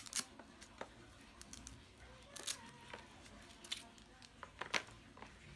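A Chromebook's charger cable and power brick being handled and uncoiled, giving an irregular scatter of light clicks, taps and rustles. The sharpest clicks come at the very start, about two and a half seconds in and just before the end.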